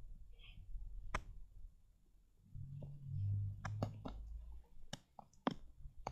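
Scattered small clicks and light knocks of handling, more frequent in the second half, with a low hum for about a second and a half around the middle.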